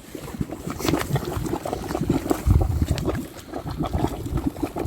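Hot spring water bubbling and gurgling as it wells up into a small pool, an irregular patter of small pops. The water is near boiling, hot enough to cook eggs and potatoes in.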